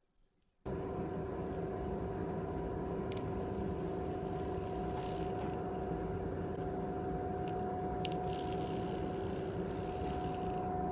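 Faulty PlayStation 3 DualShock 3 rumble motor, an offset-weight vibration motor, powered up on its own and spinning with a steady whirring buzz that starts suddenly under a second in. It sounds a little bit rattly, the sign of a worn-out motor.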